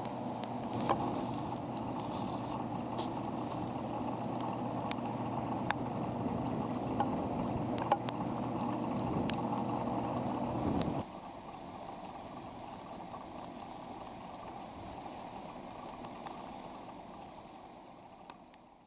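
Steady rumble of the BAe 146-200's four turbofan engines running. It drops suddenly in level about eleven seconds in, then fades away, with a few sharp clicks along the way.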